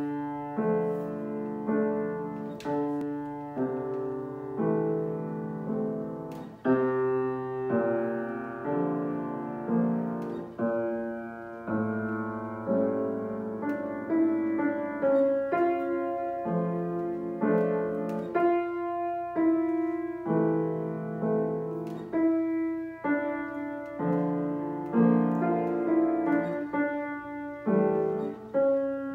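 Grand piano played solo: a slow, lyrical piece, a melody of single notes struck one after another and left to ring over long-held low bass notes.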